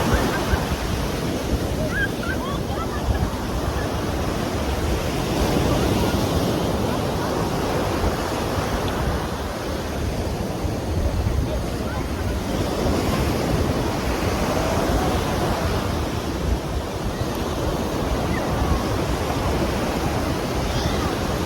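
Ocean surf: waves breaking and washing ashore in a continuous rush of noise that swells and eases several times.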